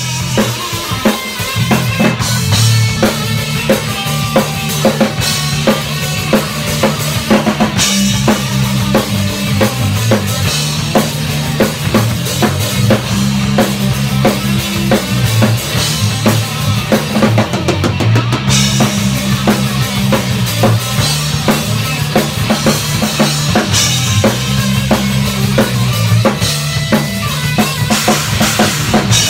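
Heavy metal band playing an instrumental passage: a full drum kit with bass drum, snare and cymbals driving a steady beat under electric guitar and bass guitar riffing.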